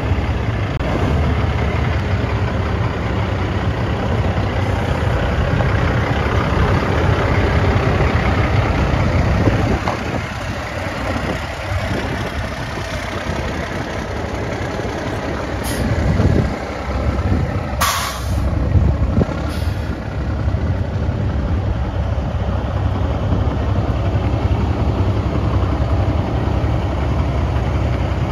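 Cummins ISX diesel engine of a 2007 International 9400i semi-tractor running steadily as the truck drives slowly, growing a little fainter for several seconds in the middle as it pulls away. About two-thirds of the way through comes a short, sharp hiss of air.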